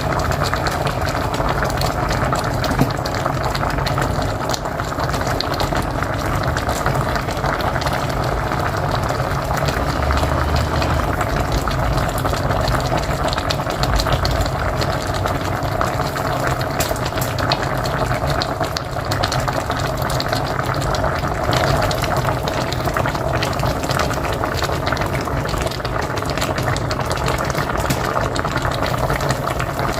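A pot of mocotó (cow's foot) boiling on a wood-fired stove: a steady bubbling with many small pops.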